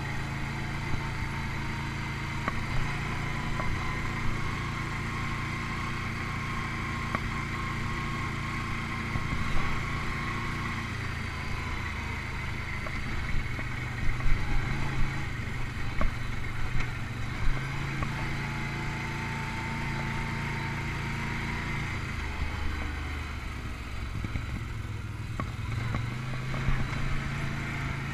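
Can-Am ATV engine running steadily at trail speed, with a faint rising whine twice and several sharp knocks about halfway through. The engine eases off near the end and picks up again.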